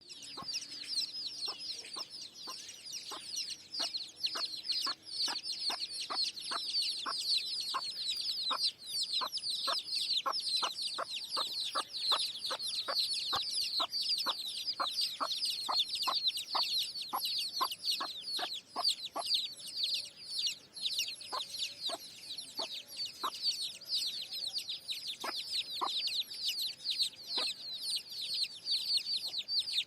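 Chickens: a dense, continuous mass of high chirping and peeping, with short regular clucks about twice a second.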